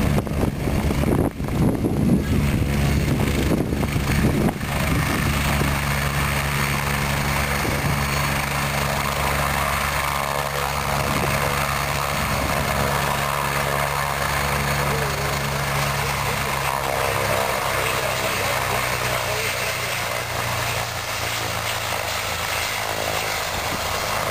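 Agusta A109 helicopter sitting on the ground with its twin turbine engines and main rotor running, a steady drone. For the first four seconds or so, rotor wash buffets the microphone in uneven gusts, then the sound settles to an even level.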